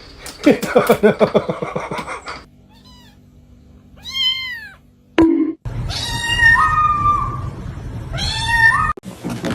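Cats meowing: a string of separate arched, pitched calls. A loud burst of rapid, dense sound comes in the first two seconds.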